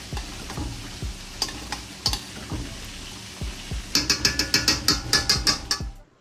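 Spoon stirring and scraping in a large stainless-steel pot of pasta, with scattered knocks and clicks, then a fast run of sharp clicks, about six a second, over the last two seconds before the sound cuts off.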